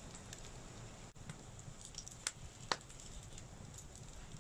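Wood fire crackling under a skillet of chickpea batter, over a steady low hiss, with a few sharp pops about halfway through.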